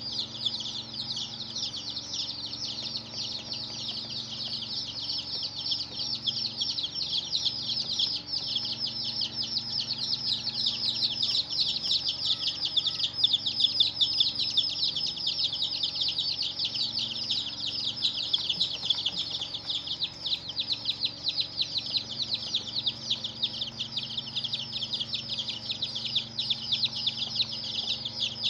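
A brood of baby chicks peeping continuously, many high-pitched chirps overlapping in a dense, unbroken chatter.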